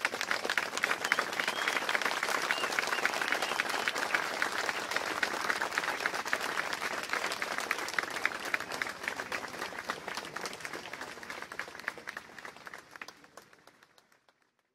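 Audience applauding, the clapping thinning out and fading away over the last several seconds.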